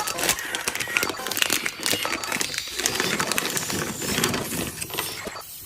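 Candy packaging being handled and opened: irregular crinkling and crackling of wrappers, with many small clicks and taps.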